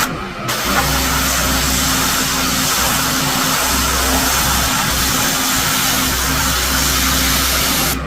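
Pressure washer at work: the loud hiss of the water jet spraying over the steady hum of its motor. The spray cuts out for about half a second at the start, then resumes.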